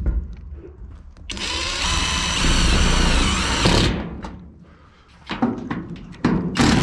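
Cordless impact driver spinning a roofing screw into a metal roof-tile sheet for about two and a half seconds, its pitch dropping near the end as the screw bites. Knocks and clicks from the metal sheet being handled come near the end.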